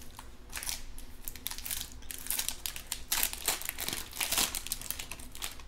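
A 2020 Panini Mosaic Football card pack's foil wrapper being handled and torn open by hand, crinkling in a run of quick, irregular crackles.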